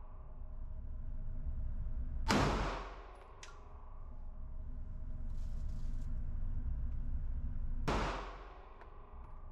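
Two pistol shots from a Smith & Wesson Shield Plus, about five and a half seconds apart, each echoing off the walls of the indoor range lane.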